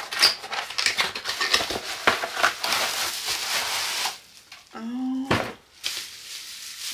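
Cardboard box being opened and a bubble-wrapped item pulled out of it: a dense run of crackling, rustling and small clicks for about four seconds, then fainter crinkling. A short hum from a woman's voice comes about five seconds in.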